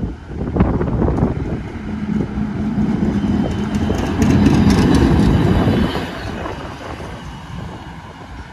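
A PCC streetcar passing close by on its rails, rising to its loudest about four to six seconds in and then fading. It makes a steady hum, with sharp clicks from the wheels on the track through the middle of the pass.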